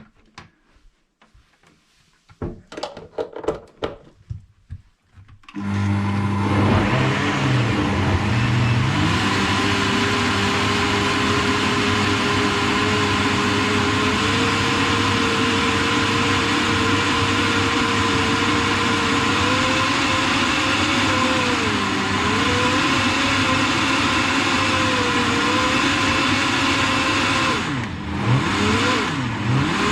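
A few knocks and clatters, then about five seconds in a countertop blender starts and runs steadily, blending a thick smoothie; its motor pitch rises as it gets going and sags briefly a couple of times as the load shifts.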